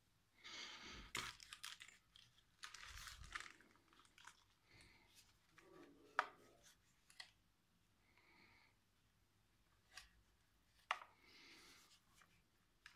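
Faint handling noises: crinkly rustling of plastic bubble wrap as a DSLR camera body is picked up off it, then scattered small clicks and taps of fingers on the camera body, the sharpest about six seconds in.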